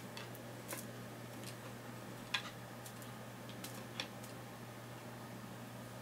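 A few short sharp taps and clicks from a kitten's paws and claws landing and scrabbling on the wooden top of a box as it bats at a feather wand toy, the loudest a little past two seconds in, over a faint steady hum.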